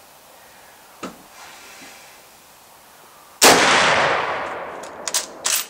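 A single shot from a Mosin-Nagant M91/30 bolt-action rifle firing 7.62x54R surplus light ball, loud and sudden, with a long fading echo. Near the end come a few sharp metallic clicks as the bolt is worked.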